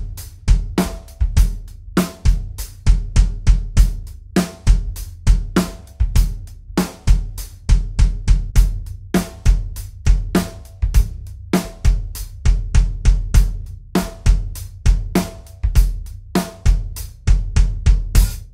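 Drum kit playing a steady groove: kick drum fitted with clear Remo Powerstroke 3 and then Powerstroke 4 pre-dampened batter heads, giving a muffled, defined kick, with a steel snare backbeat about every second and a quarter and hi-hat and cymbal strokes in between. The kick drum head changes from the Powerstroke 3 to the Powerstroke 4 partway through.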